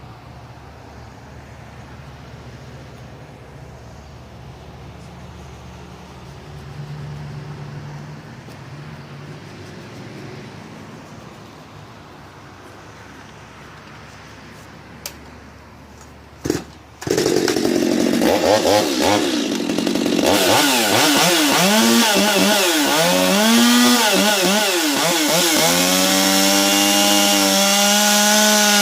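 A few clicks over low background noise, then about 17 seconds in a modified Stihl MS 250 two-stroke chainsaw, ported with changed timing and a buckshot muffler, starts up loud. It is revved up and down several times, then held at a steady high rev near the end.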